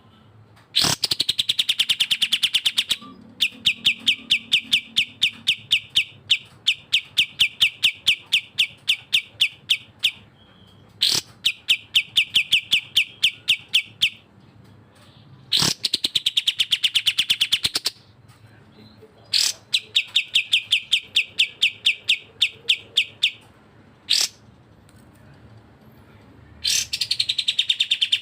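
Cucak jenggot and kapas tembak bulbuls calling in turn. Short bursts of loud, fast notes that dip and rise in pitch alternate with long runs of sharp, even chip notes at about six a second.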